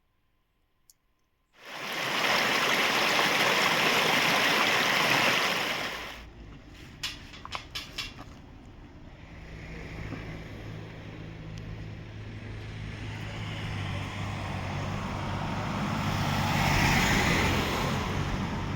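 A loud rushing noise of several seconds starts abruptly, followed by a few sharp clicks. Then a vehicle engine runs with a steady low hum that slowly grows louder.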